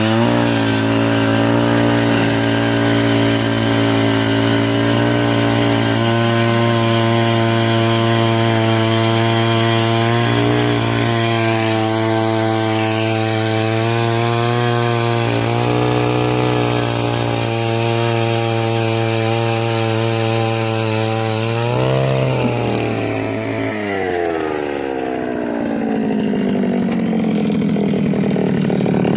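Gas-powered ice auger engine running steady at full throttle while drilling through the ice, with brief dips in pitch about ten seconds in and again near twenty-two seconds. About twenty-four seconds in, its pitch falls slowly as it winds down.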